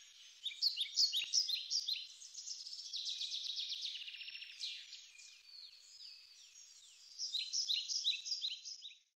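Birds chirping and singing, quick runs of short high chirps that come in three spells and stop abruptly near the end.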